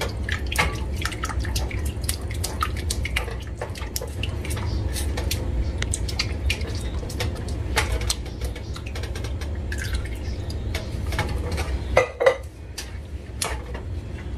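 Wooden spoon stirring a runny béchamel sauce, milk just added to the roux, in an aluminium pot: quick repeated clicks and knocks of the spoon against the pot's sides and bottom, with a couple of louder knocks about twelve seconds in, over a steady low hum.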